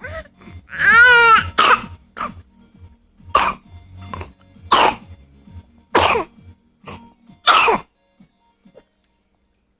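A brief wavering vocal call, then a run of about six harsh coughs spaced a second or so apart, stopping about eight seconds in.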